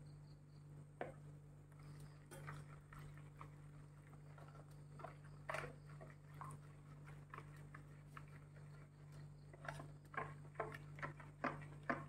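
Faint, irregular wet squishing and scraping of a hand mixing oil into chili powder and ground spice masala in a plastic bowl, growing busier near the end, over a steady low hum.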